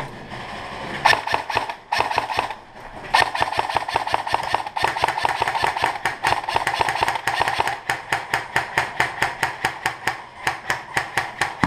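Airsoft rifle firing out of a window: a short burst about a second in, then a long run of rapid shots from about three seconds on, slowing to an even string of about six shots a second near the end.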